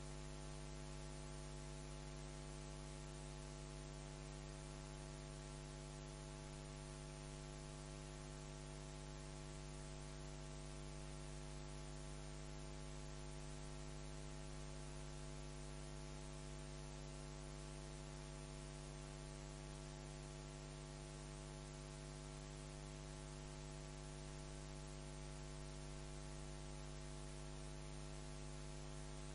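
Low, steady electrical hum with a faint hiss, unchanging throughout: mains hum in the audio line.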